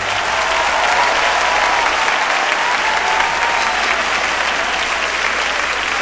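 Live audience applauding steadily right after a gospel choir song ends.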